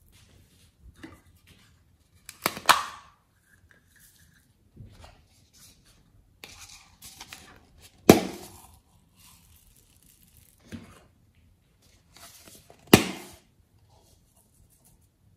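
Snap-lid plastic containers clicking open: three sharp pops about five seconds apart. Between them come fainter rattling and scratching as foam beads and sprinkles are tipped into a glass dish.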